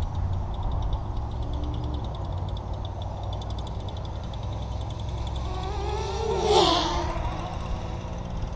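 FPV racing quadcopter's motors whining under wind rumble, rising and then falling in pitch with a throttle burst about two thirds of the way through.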